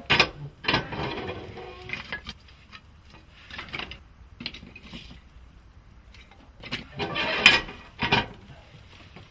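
Irregular knocks, clicks and scraping of objects being handled, with louder clatters near the start and again about seven to eight seconds in.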